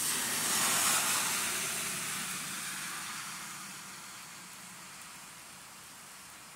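Rain falling on wet concrete, with the hiss of a vehicle's tyres on the wet road swelling to a peak about a second in and then fading away.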